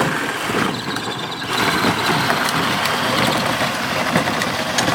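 Battery-powered kids' ride-on toy ATV driving along a rough asphalt path: a loud, steady grinding rumble from its hard plastic wheels rolling over the surface and its electric drive running.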